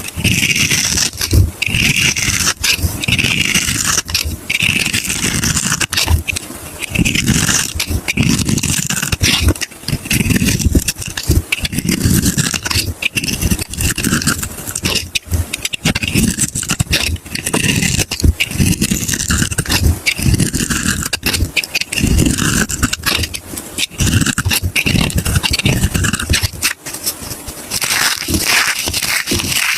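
Soap being crushed and broken apart, a continuous crunching and scraping with dense crackles throughout.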